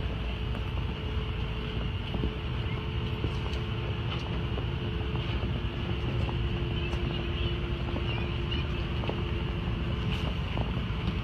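NSB El 18 electric locomotive standing at the platform with its equipment running: a steady low rumble and hum with a faint whining tone, mixed with wind on the microphone.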